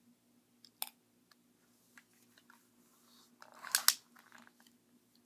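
Plastic clicks and rattling from a BB gun being handled: a sharp click about a second in, scattered small clicks, then a loud burst of clicking and rattling near four seconds in.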